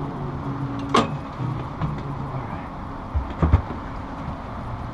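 Outboard motor running at low idle, a steady low hum, with a sharp click about a second in and a couple of dull knocks at about three and a half seconds.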